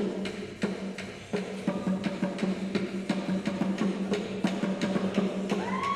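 Drums beating in a quick, steady rhythm over a steady low hum, with a tone rising in pitch near the end.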